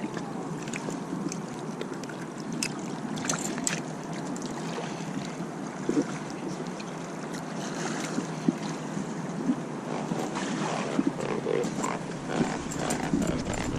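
Steady rush of wind and water at the bank, with scattered small splashes and knocks throughout.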